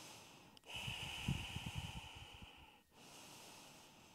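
A woman's slow, audible breathing: one long breath starting about half a second in, then a softer one near the end.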